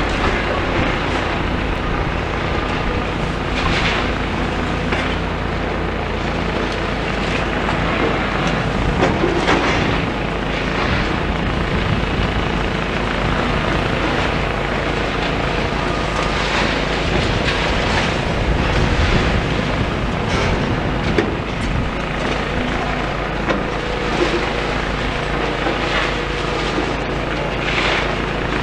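Demolition excavator engine running steadily, with repeated knocks and clatter of rubble being moved.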